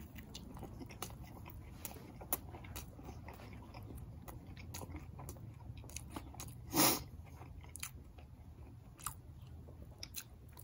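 Close-up chewing of a toasted breakfast sandwich, with the crisp toasted bread crunching in many small clicks. One short, louder sound comes about seven seconds in.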